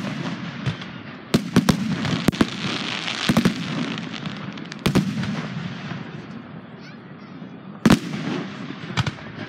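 Aerial firework shells bursting: about half a dozen sharp bangs at uneven intervals, the loudest near the end, over a hissing crackle from the burning stars.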